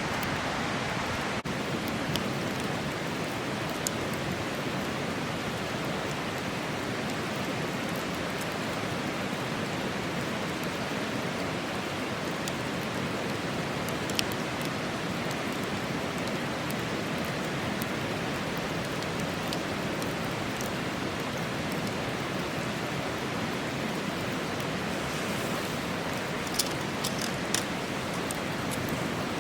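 A river rushing steadily, with a campfire's wood giving a few sharp crackles and pops now and then, several close together near the end.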